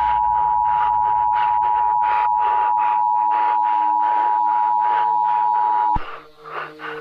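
Emergency Alert System attention signal: a steady two-tone alarm, with a pulsing noise behind it, that cuts off suddenly with a click about six seconds in.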